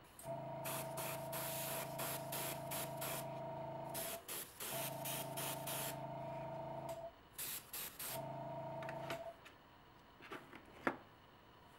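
Airbrush spraying thinned paint in short hissing bursts. Under them, the small airbrush compressor's motor hums steadily in three stretches, starting and stopping with the spraying. A single click comes near the end.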